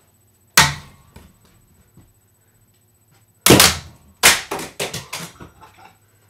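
A thrown TV remote control hitting hard surfaces with loud, sharp smacks: one hit about half a second in, then two more about three seconds later, the last breaking into a quick run of bounces and rattles that die away.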